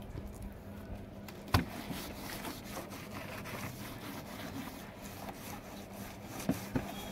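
Cloth rubbing and wiping over a motorcycle's plastic body panels, with one sharp knock about a second and a half in and two lighter knocks near the end.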